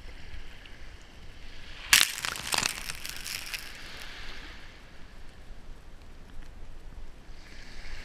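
Small surf waves breaking at the water's edge close to the microphone: a sudden splash about two seconds in, then the hiss of foam washing over sand and shells that fades away, with the next wave building near the end.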